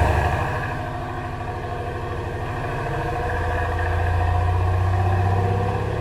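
Mercedes-AMG C63 S (W205) twin-turbo 4.0-litre V8 falling back from a rev to steady low running in the first second. It swells louder for a couple of seconds in the second half, then eases again.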